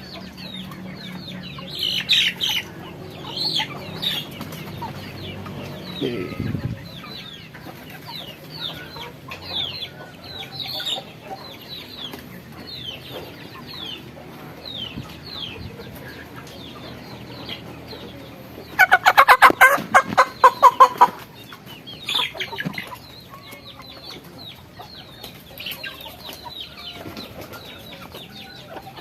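Chickens clucking, with short high calls about once a second. About nineteen seconds in, a loud flurry of about ten rapid squawks in two seconds, from a chicken being held for its vaccine injection.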